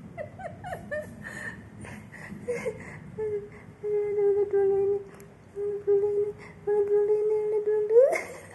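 A woman humming in long held notes at a nearly steady pitch, in four stretches with short breaks, ending with a quick rising note near the end. Before that come a few short gliding vocal sounds.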